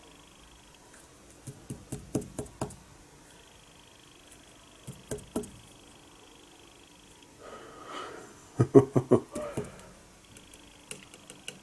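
Small metal clicks and taps in three short clusters, the loudest near the end after a brief scraping rustle, as a surface gauge and dial indicator are nudged and adjusted against a toolmaker's vise to bring the indicator to zero.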